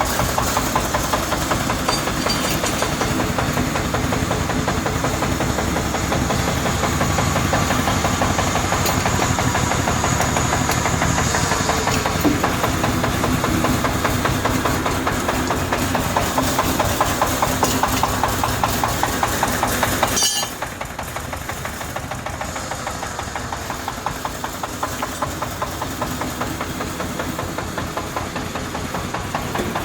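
Compact excavator's engine running steadily with a rapid, even knock of its firing strokes. About two-thirds of the way through, the sound drops suddenly to a lower level and carries on more quietly.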